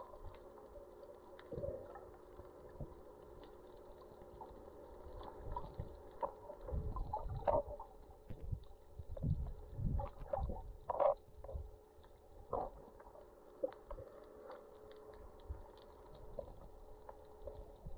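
Muffled underwater sound picked up by a camera submerged while snorkelling: a steady faint drone with irregular knocks and rushes of water against the camera, busiest in the middle seconds.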